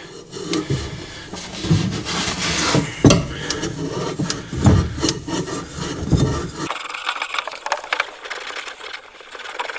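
Very fine wire wool being rubbed back and forth on a copper pipe, in irregular scratchy strokes, scouring the pipe to clean bright metal so it will take solder.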